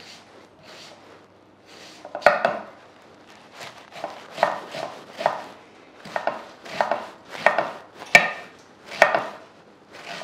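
Chef's knife finely chopping a red onion on a wooden cutting board: faint slicing strokes at first, then, from about two seconds in, sharper knocks of the blade on the board about once or twice a second.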